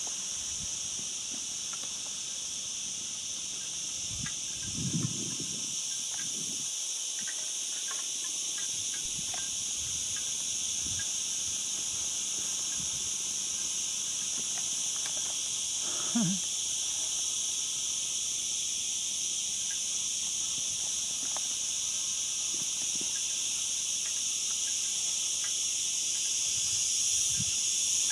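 Steady, high-pitched insect chorus droning without a break, with two brief low thumps about five and sixteen seconds in.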